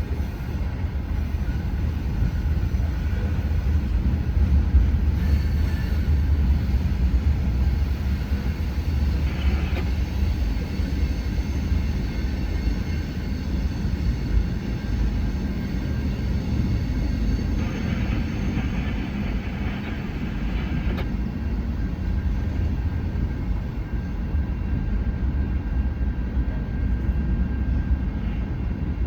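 Norfolk Southern freight train's cars rolling past, a steady low rumble of wheels on rail.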